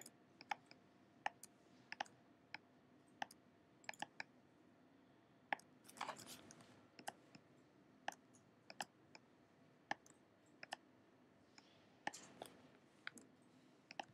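Faint, unevenly spaced clicks of a computer mouse, about two a second, while clone-stamping in an image editor, with a brief soft rustle about six seconds in and again near twelve seconds.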